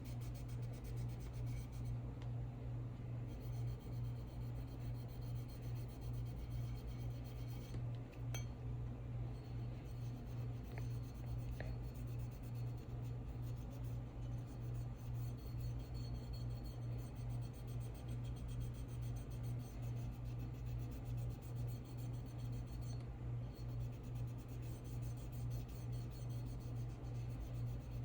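Cloth rag rubbing back and forth on a pistol slide, irregular and ongoing, as solvent wipes excess enamel paint off the colour-filled engravings. A steady low hum runs underneath.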